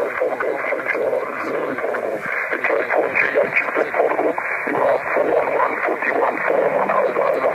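A 10 GHz voice signal scattered off a rain cloud, heard through a Yaesu FT-817 transceiver. The voice is smeared into a rough, hissy buzz: the auroral sound of rain-scatter propagation.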